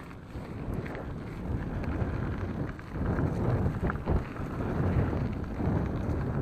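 Mountain bike riding a dry dirt forest trail: wind buffeting the microphone over the rumble and rattle of the tyres and bike, growing louder about three seconds in.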